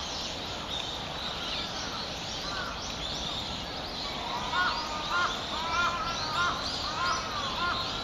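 Woodland birdsong: many small birds chirping high-pitched throughout. From about four seconds in, a louder, lower-pitched bird call repeats about every half second, over a steady low background rumble.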